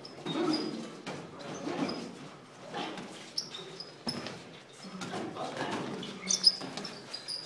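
Boxing sparring footwork: athletic shoes squeaking in short high chirps on the smooth gym floor, with shuffling steps and dull thuds of gloves landing. The loudest squeaks come about six seconds in.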